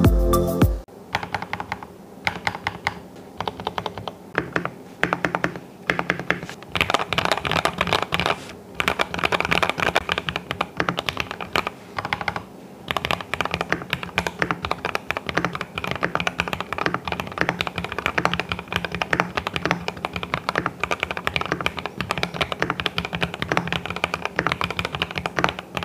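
Typing on a Keychron V1 mechanical keyboard: a fast, continuous clatter of keystrokes with a few short pauses. A piece of music cuts off in the first second.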